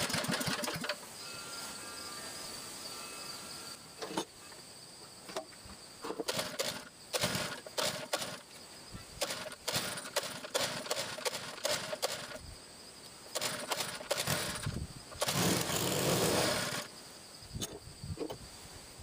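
Workshop handling sounds: irregular clicks and knocks, with a hiss lasting about a second and a half a little past the middle.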